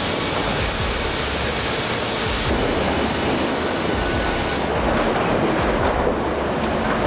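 Sawmill production-line machinery running: a steady rumbling clatter whose character changes abruptly about two and a half seconds in and again near five seconds.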